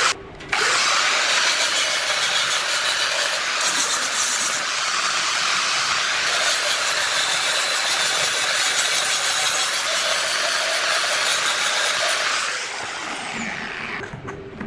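Electric angle grinder with an abrasive disc grinding the side of a metal cup, loud and steady from about half a second in, after a couple of knocks of the cup on the bench. Near the end the disc comes off the metal and the grinder winds down with a falling whine, stopping shortly before the end.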